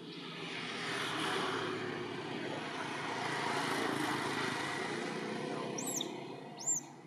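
Distant engine noise from passing traffic swells and fades over several seconds. Near the end come two short, arched, high bird chirps, the second one the loudest sound.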